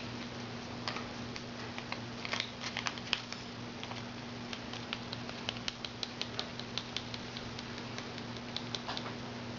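Sheet of origami paper being handled and creased, giving irregular crisp crackles and clicks, over a steady low electrical hum.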